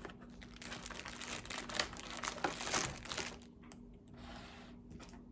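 Crinkling and rustling of a new dog toy's packaging as it is handled, busiest over the first three seconds and then softer.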